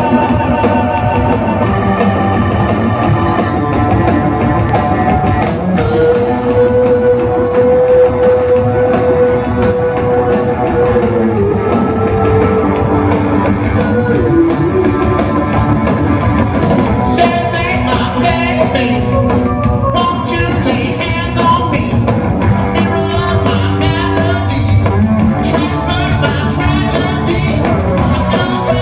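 Rock band playing live, heard from the audience: driving drums, electric guitars and a sung lead vocal, with a long held note about six seconds in.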